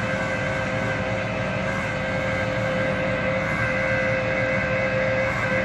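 Flatbed tow truck running with a steady whine from its hydraulics and winch as the wrecked car is pulled up onto the tilted bed.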